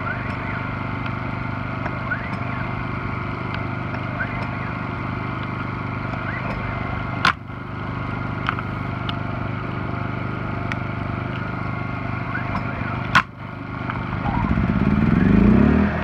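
Yamaha EF2000iS inverter generator running steadily, with two sharp clicks about six seconds apart. Near the end the engine revs up as the trailer air conditioner's load comes on.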